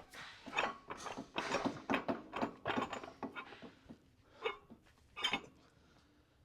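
Light, irregular metallic clanks and knocks of steel excavator parts shifting as a component comes off its pin, dense for about three seconds, then two single knocks near the end.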